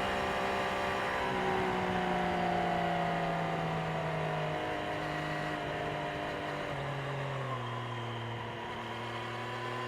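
Triumph Street Triple 765 RS's inline three-cylinder engine running through its stock exhaust. Its note holds steady, steps up slightly about a second in, then drops in several steps from about halfway before settling near the end.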